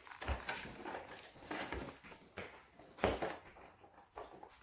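Eating sounds: a metal fork clicking against a plastic food container while salad is picked up and chewed, in a few short, irregular knocks, the loudest about three seconds in.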